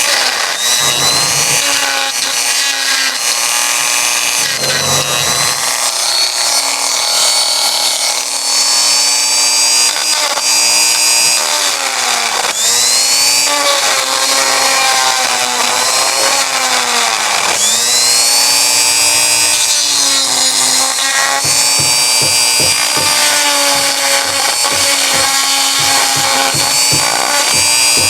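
Electric power tool motor running continuously with a high whine that sags in pitch and recovers several times as the tool takes load.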